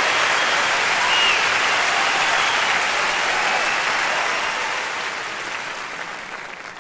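Audience applauding at the end of a song, dying away over the last few seconds.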